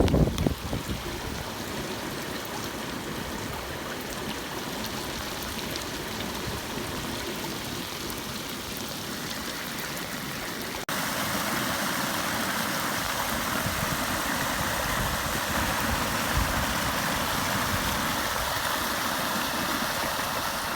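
Steady rush of flood water pouring through and out of a farm dam's overflow pipe running almost at capacity. About halfway through it switches abruptly to a louder, brighter rush of water.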